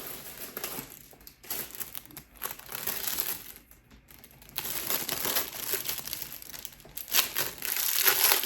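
Packaging crinkling and rustling in irregular stretches as an item is unwrapped, louder in the second half.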